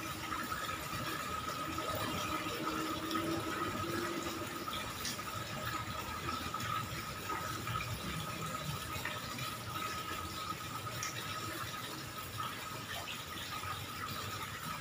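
Water running steadily from a tap into a plastic bucket, with one steady tone running through the splashing.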